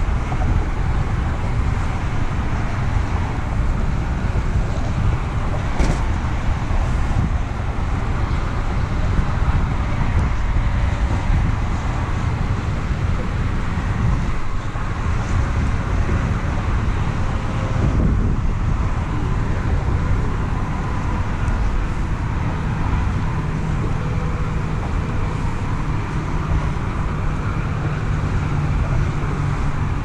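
Wind buffeting the camera microphone over open water: a steady low rumble. A faint low hum joins about two-thirds of the way through.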